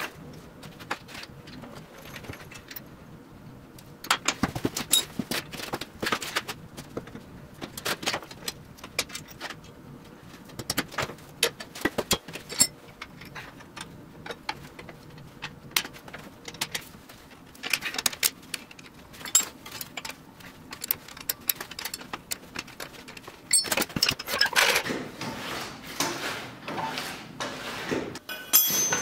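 Workshop clatter: irregular metallic clinks, clicks and knocks of tools and steel parts being handled, busiest near the end.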